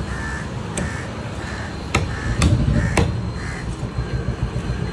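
Heavy knife chopping through fish on a wooden chopping block: four sharp knocks, two of them close together about two seconds in. Crows caw over and over behind it.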